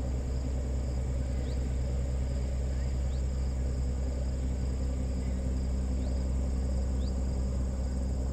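A steady low hum with a constant high drone, like insects, over it. Four short rising bird chirps come about one to three seconds apart.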